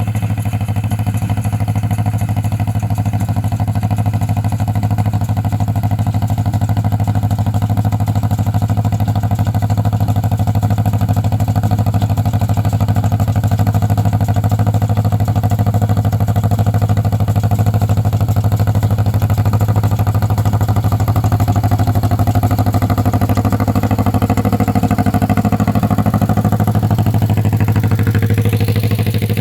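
Two-cylinder engine of a John Deere 40T tractor running steadily under load, pulling a New Holland 66 baler through hay. Near the end, some higher pitches glide and shift.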